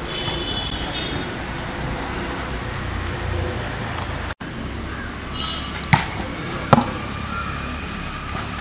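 Two sharp smacks of a volleyball being hit, a little under a second apart, over a steady low outdoor rumble. A brief dropout cuts the sound near the middle.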